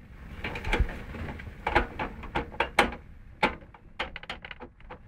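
Irregular clicks, taps and knocks of plastic and metal computer parts being handled and fitted inside a PC case. The strongest knocks come at about one and three-quarter seconds and just under three seconds.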